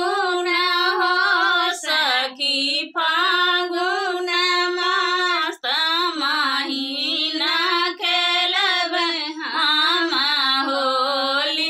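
Women singing a Phagua, a Holi folk song, without instruments, in long drawn-out phrases. The singing stops abruptly at the end.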